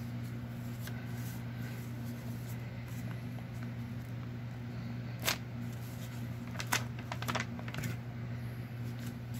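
Paper being handled and a glue stick rubbed over a torn paper strip, with a few soft clicks and rustles about five seconds in and again around seven seconds, over a steady low hum.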